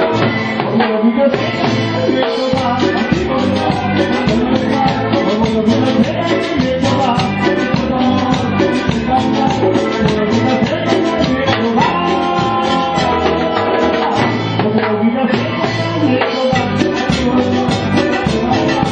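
Live cumbia band playing an upbeat dance number, with a steady percussion beat under melodic keyboard lines.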